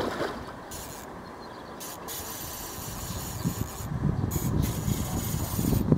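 Wind buffeting the microphone, an uneven low rumble that grows stronger from about halfway through.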